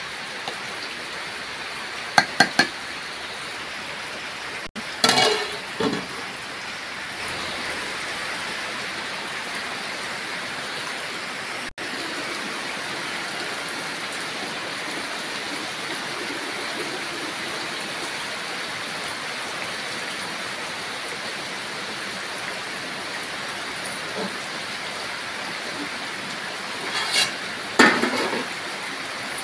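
Steady heavy rain. A few short clinks and scrapes of a metal ladle against a metal cooking pot come about two seconds in, around five seconds in, and near the end.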